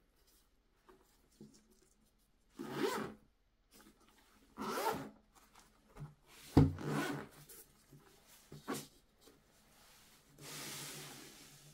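Zipper of a fabric-covered hard-shell carrying case being pulled open in a series of short zips, with a thump about six and a half seconds in and a longer, softer zip near the end.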